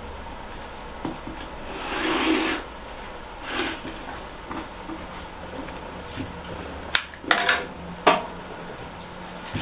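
Rotary cutter blade rolling through layered cotton patchwork against a cutting mat, guided along an acrylic ruler. It makes scraping cutting strokes: a longer, louder one about two seconds in and a shorter one a second and a half later. Near the end come a few sharp clacks and knocks as the cutter and ruler are handled on the table.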